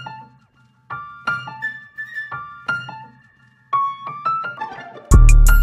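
Intro music: short phrases of struck piano-like keyboard notes, each fading quickly. About five seconds in, a loud beat with heavy bass kicks in.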